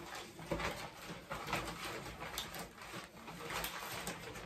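Rustling and soft knocks of small product packets being handled and sorted.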